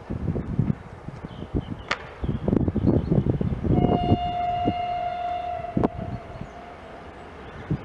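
Horn of an approaching ADM1 track-maintenance motor railcar: one steady blast of about three and a half seconds, starting about halfway through. Before it, gusts of wind buffet the microphone.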